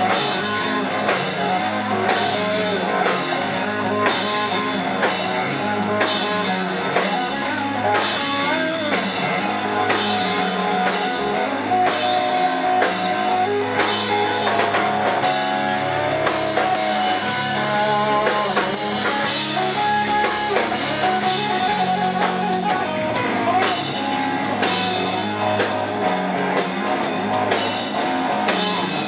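Rock band playing an instrumental break: a guitar solo with sliding, bending lead lines over a steady drum kit beat and bass.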